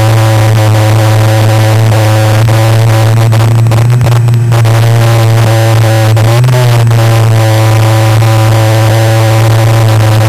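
The 31 cc weed-eater two-stroke engine of a radio-controlled scale hydroplane running at speed, heard from on board: a loud, steady drone at one pitch. Its pitch flickers briefly twice, about four and six and a half seconds in.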